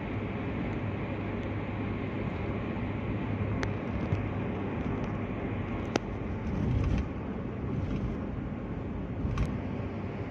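Steady tyre and road noise with engine hum, heard inside a car's cabin at highway speed. A few sharp clicks and a short, louder low rumble a little past the middle break the steady noise.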